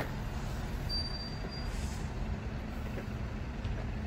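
Steady low rumble of outdoor background noise, with a short, thin high tone about a second in.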